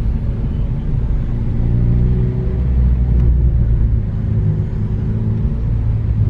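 Vehicle engine running at low revs, a steady low rumble whose pitch shifts slightly now and then.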